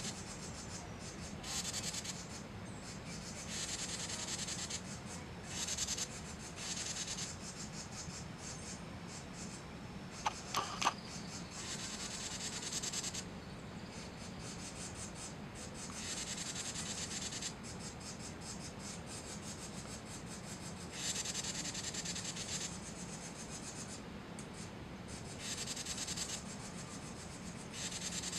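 Carolina wren giving harsh, hissing warning calls: repeated raspy bursts, each about a second long, a few seconds apart, with a couple of short sharp notes about ten seconds in. The calls are a sign of alarm.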